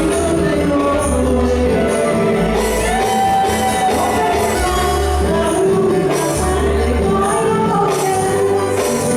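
Music with a singer over a steady bass line, the voice sliding between notes.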